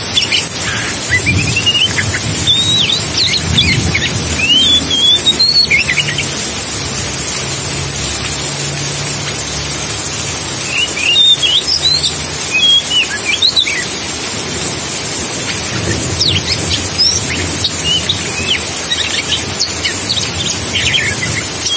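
Oriental magpie-robin singing in spells of quick, varied whistled notes that rise and fall, with pauses between the spells. Under it is a steady rushing hiss with a low rumble.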